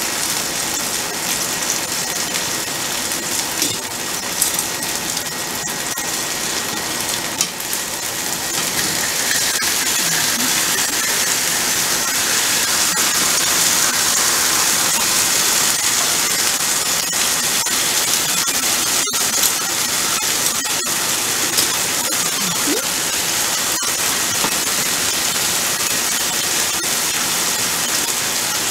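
Chicken frying in a pan: a steady sizzle that grows a little louder about eight seconds in, with a few light knocks.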